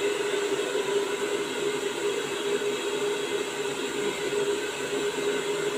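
Handheld hair dryer running steadily: a rush of air over a steady motor hum.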